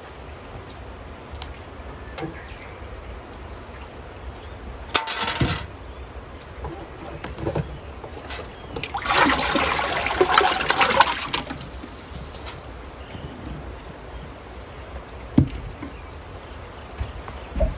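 Water splashing twice: a short splash about five seconds in, then a longer pouring splash lasting about two seconds, with a couple of light knocks later on.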